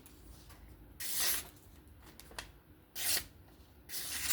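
Folding knife blade slicing through paper to test its edge: three short, hissing cuts.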